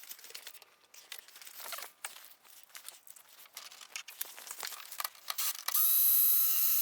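Rustling and scattered clicks of parts being handled, then about six seconds in a small electric motor whirs steadily for about a second, the kind of short run a power tool makes while fitting diffuser-fin hardware.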